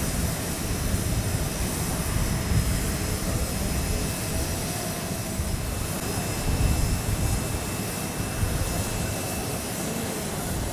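Steady airfield aircraft noise with a faint high whine, mixed with wind rumbling unevenly on the microphone.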